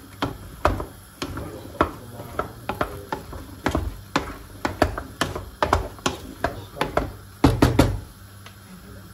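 Sharp, irregular knocks and taps, a few a second, with a quick cluster of hard knocks near the end.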